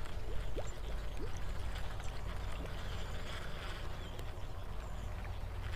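Wind noise on the microphone, a steady low rumble, with a few short rising chirps in the first second or so and one more a little before the middle.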